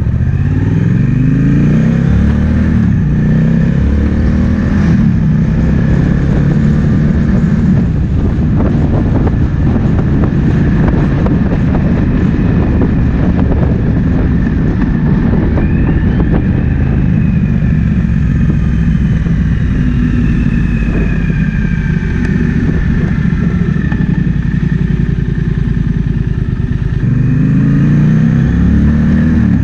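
Triumph Speed Twin 1200's parallel-twin engine running on the move, rising in pitch as it accelerates over the first few seconds and again near the end, with steady cruising between. Wind noise rushes over the microphone throughout.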